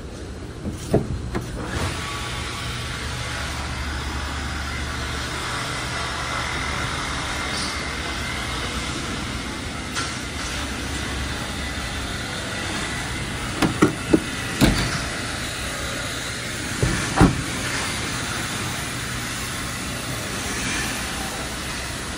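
Steady rushing noise with a low hum, typical of a large shop building, broken by a few sharp knocks and clicks about a second in and again around the middle.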